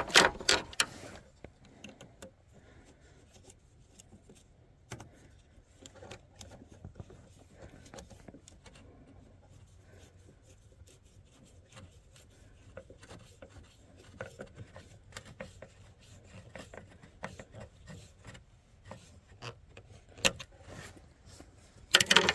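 Hands and tools working on fuel-line fittings and hose clamps in a car engine bay: scattered light clicks, rubs and scrapes, with a louder clatter of knocks at the start and again near the end.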